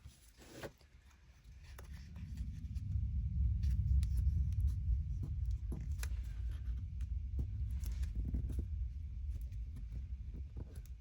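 A low rumble that swells over the first few seconds and then slowly eases, with scattered light taps and rustles of paper being handled.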